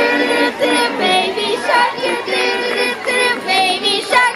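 Background music with a high singing voice holding and sliding between notes.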